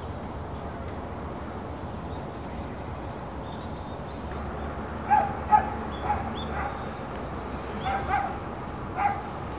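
A run of short, high animal calls, about seven over four seconds, starting about halfway in, over a steady low hum.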